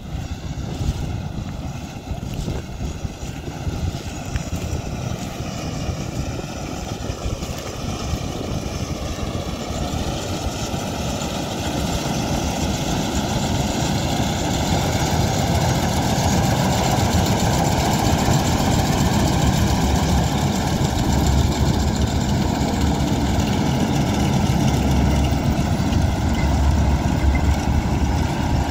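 Malkit self-propelled combine harvester running while cutting soybeans: its diesel engine and threshing machinery make a steady mechanical noise that grows louder over the first half and then holds steady as the machine comes up close.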